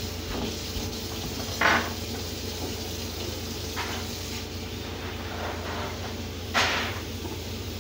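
Pans and cupboards being handled out of sight: short clattering, rustling noises, two louder ones about a second and a half in and near the end, over a steady low hum.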